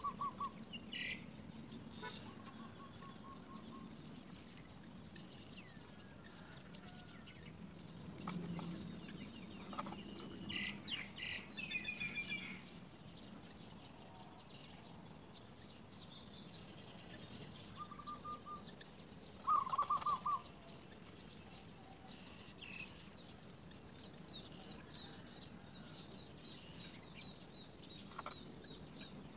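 Birds calling around a nest: short rapid trills that come back a few times, the loudest about two-thirds of the way through, with a spell of higher chirping near the middle.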